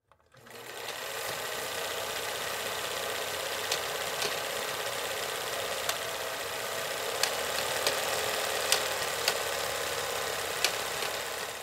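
Film projector sound effect: a steady mechanical whir with hiss and scattered crackling pops, like an old film reel running. It fades out near the end.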